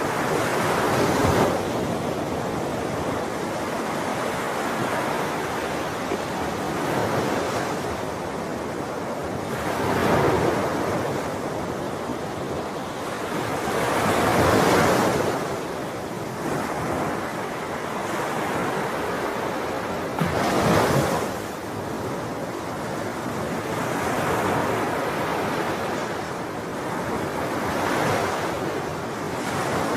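Ocean waves breaking and washing in, a continuous surf that swells every few seconds as each wave comes in.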